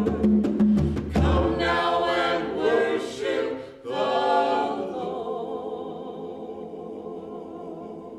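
A small mixed group of men's and women's voices singing in harmony, with a few conga strokes in the first second, ending on a long held chord that fades out.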